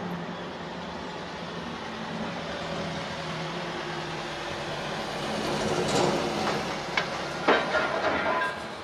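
CAT 320 excavator running steadily while its demolition shear works steel struts over a scrap container; from about six seconds in, several sharp metal clanks with ringing tones as the steel pieces are cut and knocked together, the loudest about seven and a half seconds in.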